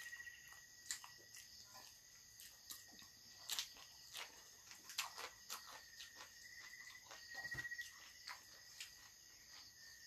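Faint mouth sounds of eating: scattered soft clicks and smacks as sea grapes and bread are chewed. Under them, a steady high insect trill, typical of crickets, pulses now and then.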